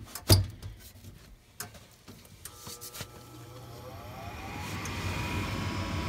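The furnace's sheet-metal door panel pushed into place with a thump, a couple of light clicks, then the 2004 Trane gas furnace's draft inducer motor starting up, its hum and whine rising in pitch and growing steadily louder as it spins up.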